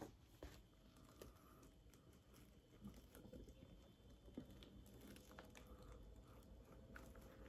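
Near silence, with a few faint clicks and rustles of a plastic shaving-soap tub being handled and opened.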